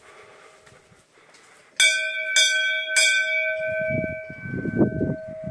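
A hanging brass temple bell struck three times in quick succession, about half a second apart, each strike ringing on in the same clear tones. Some low knocks of handling follow while the ringing fades.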